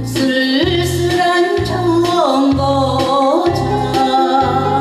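Korean trot song performed live: a woman singing into a microphone over a backing track with a steady bass beat.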